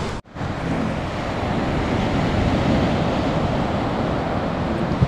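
Ocean surf breaking on a sandy beach, a steady rush mixed with wind buffeting the microphone; the sound drops out for an instant about a quarter second in.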